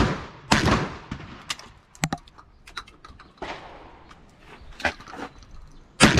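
12-gauge shotgun firing birdshot at steel targets: a loud shot about half a second in and another at the very end, each with a trailing echo. Fainter shots and sharp clicks come in between.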